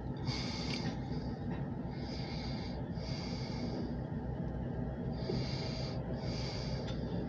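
Low, steady diesel locomotive rumble as the switcher pulls a covered grain hopper slowly past. Short hissing puffs come and go about once a second.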